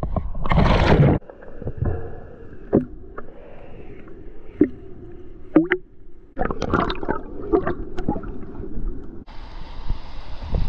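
Water sloshing over the camera as it goes under, then muffled underwater sound of the river with scattered clicks, knocks and bubbling. Near the end the camera breaks the surface and the rush of shallow river water over rocks cuts in.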